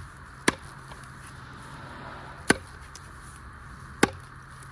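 Three sharp chopping blows of a blade into a small spruce pole, about one and a half to two seconds apart, trimming the top of the pole.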